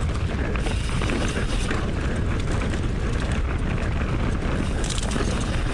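Wind buffeting the action camera's microphone as a mountain bike rides downhill, with tyres rolling over the dirt trail and a few light knocks from the bike.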